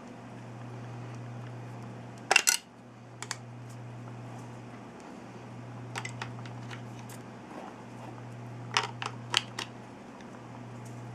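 Small plastic buttons on a digital alarm clock clicking as they are pressed: a loud pair of clicks about two seconds in, a few lighter clicks around three and six seconds, and a quick run of clicks near nine seconds. A steady low hum sits under them.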